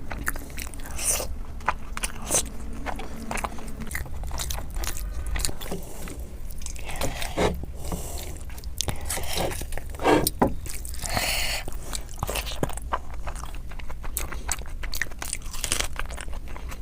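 Close-miked eating of chicken curry and rice: irregular chewing and biting with crunches and scraping.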